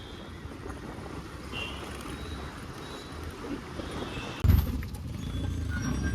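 TVS Apache RTR 180 motorcycle on the move, its engine giving a steady low rumble. A sudden loud thump comes about four and a half seconds in, and the rumble is louder after it.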